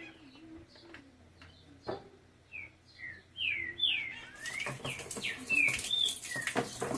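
Small birds chirping in short, quick calls that glide up and down, sparse at first and then faster and louder from about halfway through. A rustling, clattering noise joins them in the second half.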